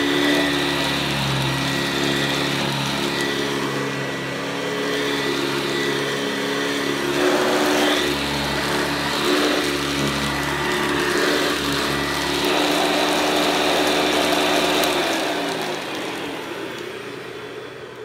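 Hoover Convertible U4345 upright vacuum cleaner running with a steady motor whine. Near the end it is switched off and its motor winds down, the pitch falling and the sound fading.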